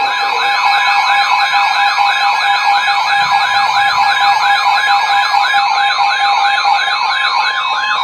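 Several weather alert radios sounding their alarms at once for a severe thunderstorm warning. Overlapping warbling siren tones rise and fall about three times a second over steady alarm tones.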